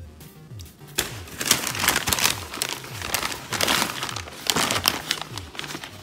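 Paper takeout bag and paper food wrapper crinkling and rustling in irregular bursts as they are handled, loudest from about a second in. Background music with a repeating bass line plays throughout.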